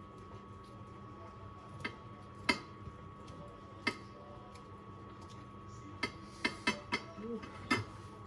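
Serving utensils and dishes clinking and tapping as food is plated: a few sharp clicks in the first half and a quick cluster of them near the end, over a faint steady hum.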